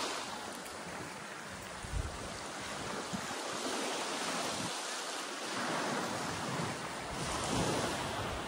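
Sea surf washing on a sandy beach, swelling and easing slowly, with wind buffeting the microphone.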